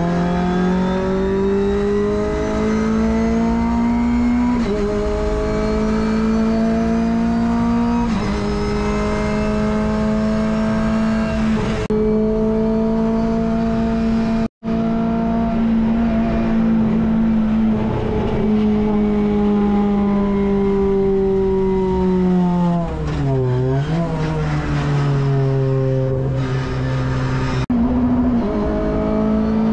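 Renault Clio Cup Gen 3 race car's four-cylinder engine heard from inside the cabin at full load, its pitch climbing through each gear with a quick upshift every few seconds. About three-quarters through, the revs fall and waver as the car slows, then it pulls up through the gears again. There is a split-second dropout about halfway.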